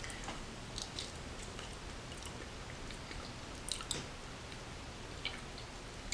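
Close-up mouth sounds of someone chewing a mouthful of soft macaroni and cheese, with a handful of short wet clicks and smacks scattered through.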